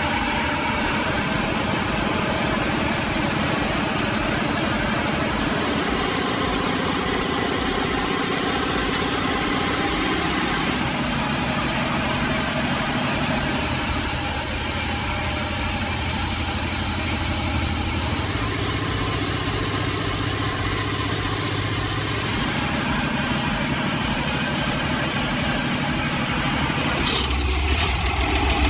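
Heavy machine's engine running steadily, its tone shifting every few seconds, with a deeper hum coming in near the end.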